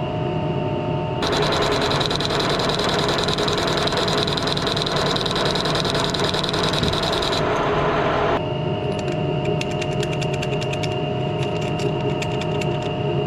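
Machine tool in a metalworking shop running with a steady hum. About a second in, a loud rushing hiss with a high whistle starts and cuts off abruptly some six seconds later, followed by a run of sharp light clicks.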